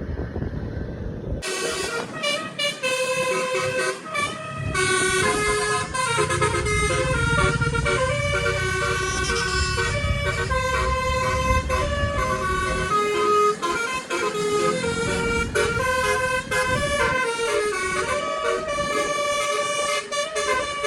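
A bus's nine-note Basuri telolet horn playing melodies, its several tones stepping quickly from note to note, over the bus engine's low running. The horn comes in about a second and a half in.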